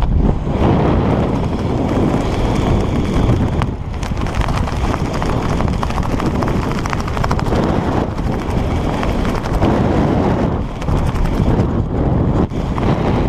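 Loud wind buffeting the camera microphone of a skydiver flying under an open parachute, with a fast flapping flutter of parachute fabric in the airflow.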